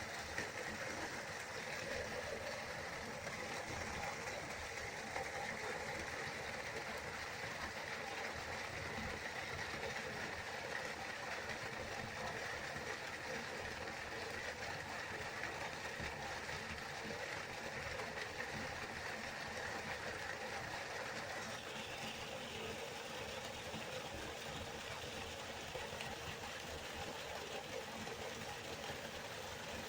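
Waterfall: a steady rush of falling water, its tone shifting slightly about two-thirds of the way through.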